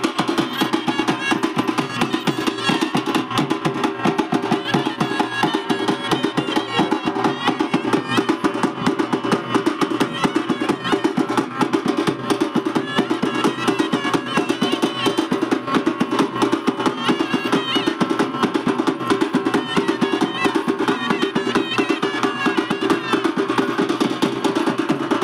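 A street band playing dance music: fast, steady drumming on drums carried by the players, with a wind instrument playing a wavering melody over it.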